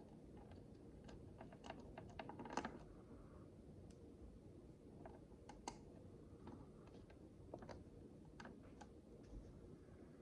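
Micro bricks (tiny plastic building bricks) clicking and tapping as they are handled and pressed together: scattered light clicks, a quick run of them in the first few seconds, the loudest about two and a half seconds in.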